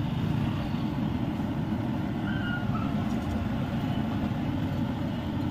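Samosas deep-frying in a large kadai of bubbling oil, sizzling steadily over a continuous low rumble.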